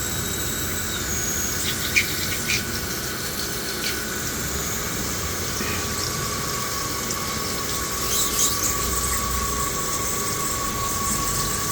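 Mori Seiki MV40 CNC machining center running with coolant flowing, a steady high whine over a hiss of liquid. A few light ticks come in the first seconds, and a second steady tone joins about halfway through.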